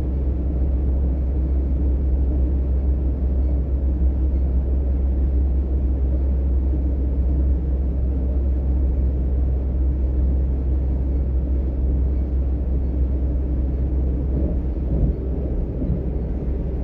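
Class 425 S-Bahn electric multiple unit (ET425 143) running between stations, heard inside the passenger compartment: a steady low rumble of wheels on rail and running gear.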